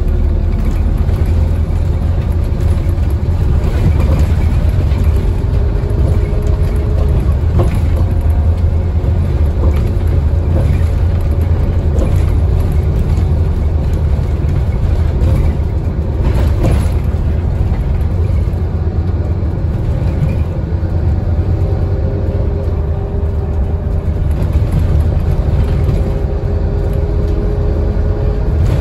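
Scania N230UD double-decker bus heard from inside the cabin as it drives: the rear-mounted five-cylinder diesel runs with a deep rumble, and its note rises and falls as the ZF automatic gearbox works through the gears. Occasional knocks and rattles come from the bus body.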